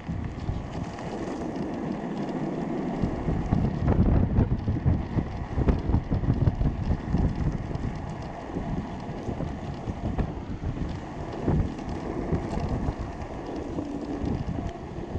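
Wind buffeting the microphone over the low rumble of a homemade electric go-kart rolling along asphalt on its hoverboard hub-motor wheels.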